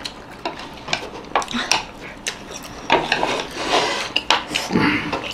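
Chopsticks clicking and scraping against ceramic plates and bowls as momos are picked up and dipped: a scatter of short sharp taps with a stretch of scraping in the middle.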